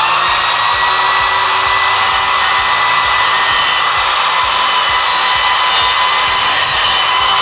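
Makita GD0603 electric die grinder running at full speed with a steady high whine, its mounted grinding stone grinding scale off the inside edge of a metal pipe.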